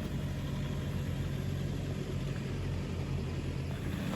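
A four-wheel-drive's engine running steadily at low revs, an even low hum with no change in pitch.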